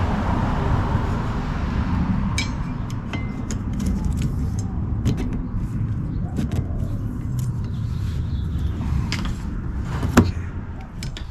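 Light plastic and metal clicks of a wiper blade being fitted onto its wiper arm, with one sharp click about ten seconds in, over a steady low outdoor rumble.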